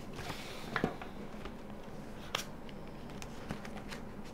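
A passport being handled and opened, its pages turned: a few soft clicks and paper rustles over a faint steady room hum.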